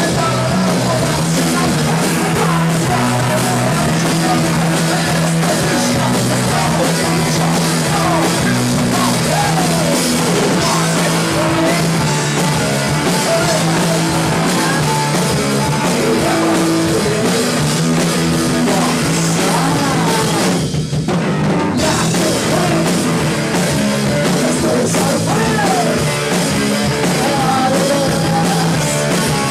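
Punk rock band playing live: electric guitar, electric bass and drum kit, with a singer. About 21 s in the band stops for a moment, then comes straight back in.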